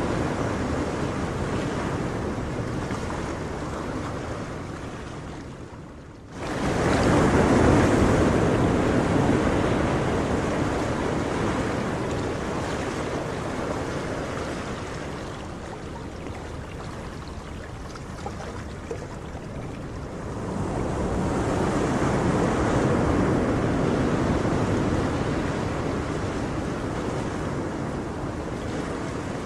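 Ocean surf: waves breaking and washing in, swelling and ebbing in slow surges. Near six seconds in the sound dips and then comes back abruptly at full strength.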